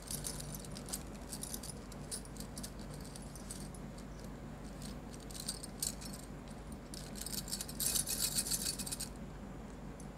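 Stacks of glass bangles on both wrists clinking and jingling together as the arms move, in short runs with pauses, the busiest jingling about seven to nine seconds in.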